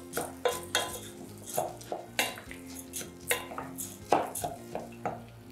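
Wooden spoon knocking and scraping against a stainless steel pot while stirring rice being fried in melted butter, irregular taps about twice a second.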